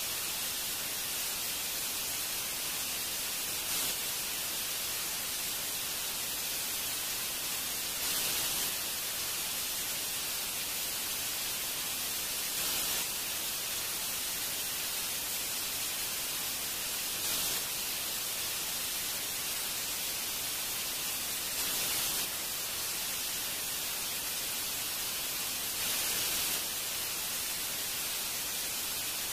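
Steady, even hiss across the whole range, stronger in the upper range, with a short louder swell about every four and a half seconds.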